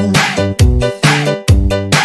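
Background music: an upbeat funk-style track with a steady beat and bass line.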